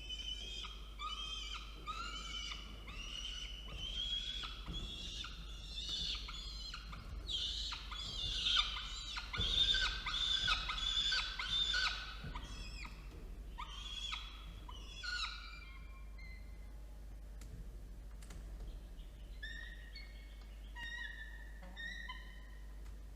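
Peregrine falcon chicks begging for food: a fast run of harsh, wailing calls, about two a second, loudest midway and breaking off after about 16 s, then a few fainter calls near the end.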